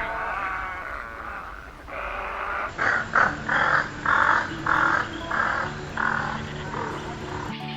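Heron giving harsh, croaking calls. A rough call comes first, then a run of about seven loud calls, roughly two a second.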